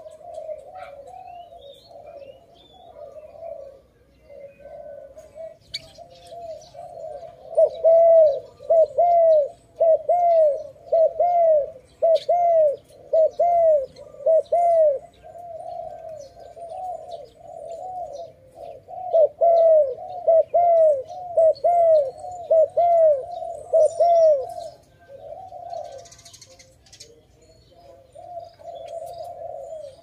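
Spotted dove cooing: a fast train of short, arched, low coos repeated several times a second, in two loud runs with softer cooing before, between and after. Faint high chirps of small birds sound above it.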